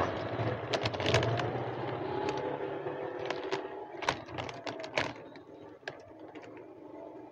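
A cat crunching dry kibble: irregular sharp crunching clicks, several a second. A motor vehicle's hum fades out in the background over the first few seconds.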